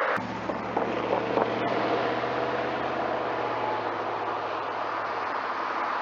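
V8 engine of a third-generation Pontiac Firebird Trans Am running steadily at a distance, its low note fading out as the car drives away.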